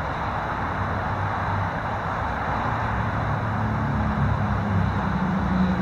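Steady rumble and hiss of road traffic, with a low engine drone that grows stronger in the second half.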